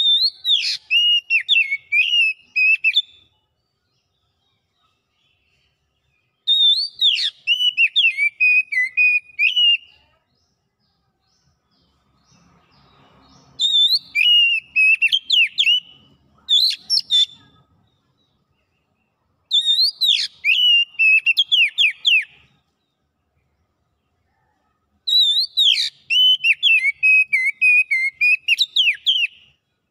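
Oriental magpie-robin singing loudly in five phrases of about three seconds each, separated by short pauses. Each phrase opens on a high whistle that drops into a quick run of varied whistled notes.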